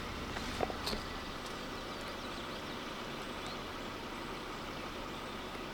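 Steady background noise with the low hum of a vehicle that drops away about a second in.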